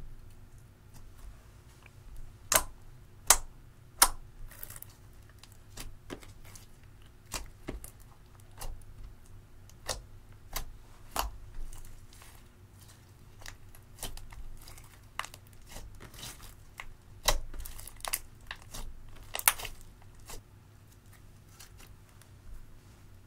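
Clear glue slime mixed with black eyeshadow being kneaded, stretched and poked by hand, giving irregular sharp clicks and pops with a soft sticky crackle between them. The loudest pops come three in quick succession a few seconds in and in a cluster later on.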